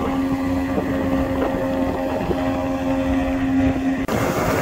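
Water-jet outboard motor running steadily at planing speed, pushing the heavily loaded RIB upstream against the current, with wind on the microphone. The sound drops out for an instant about four seconds in and comes back with more hiss.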